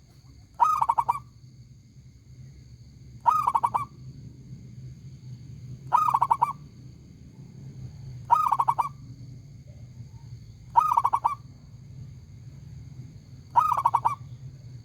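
Zebra dove cooing: six short phrases of rapid staccato coos, each about half a second long, repeated every two to three seconds. A faint steady high whine and low hum run underneath.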